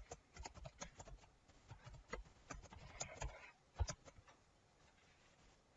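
Typing on a computer keyboard: a faint, irregular run of key clicks that stops about four seconds in.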